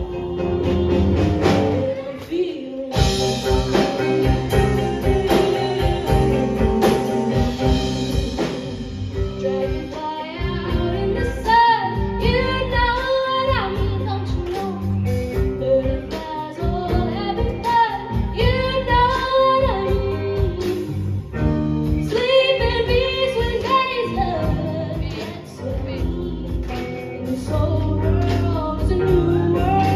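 A live rock band playing with female singing over electric guitars and keyboard, heard from the audience in a bar room.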